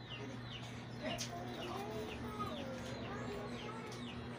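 Birds calling: a regular series of short, high, falling peeps, about two a second, with lower wavering calls through the middle, over a steady low hum.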